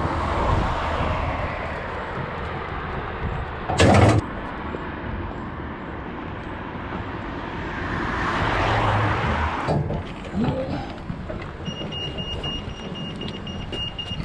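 Road traffic passing, with cars swelling up and fading away twice, and a loud short clatter about four seconds in. Near the end a pedestrian crossing's beeper starts, a steady run of high beeps.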